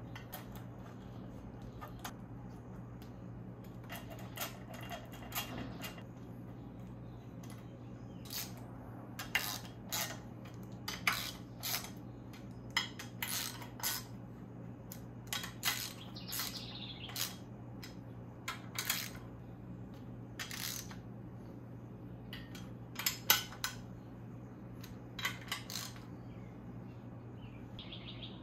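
Irregular metallic clinks and taps of bolts and hand tools against the oil filter housing on a BMW S54 engine block as its hardware is fitted, the loudest a close pair about three quarters of the way through, over a steady low hum.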